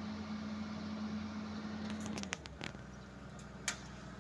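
Komatsu tracked excavator's diesel engine running at a steady pitch that drops to a lower, quieter hum a little over two seconds in. A few sharp clicks sound around the drop and once more near the end.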